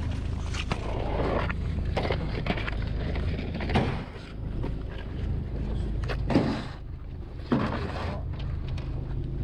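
Fishing boat's engine running steadily with a low hum, overlaid by several short knocks and splashes from handling gear and water on deck, the loudest about six seconds in.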